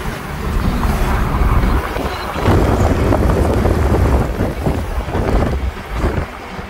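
A car driving along a road, heard from inside: road and engine rumble with wind buffeting the microphone in uneven gusts.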